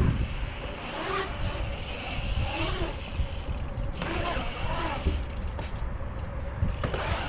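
Steady low wind rumble on the microphone, with a dirt-jump bike's tyres rolling through a concrete skatepark bowl.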